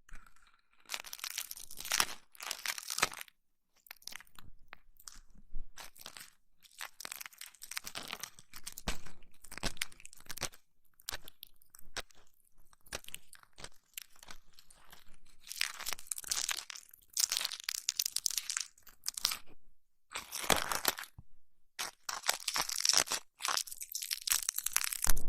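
ASMR ear massage and ear cleaning sounds in irregular bursts of a second or two, with short gaps between.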